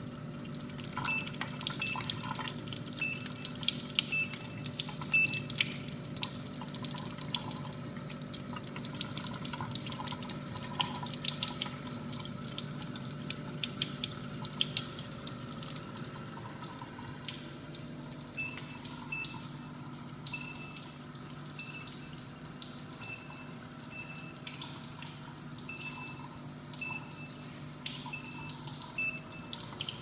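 Tap water running over a stainless-steel keypad and splashing into a steel sink, with short electronic beeps as its keys are pressed: a run of beeps in the first few seconds and another over the last ten or so, showing the washable keypad still registers presses while wet.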